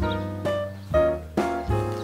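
Background music: a keyboard melody of held notes that changes every half-second or so, over a steady low bass.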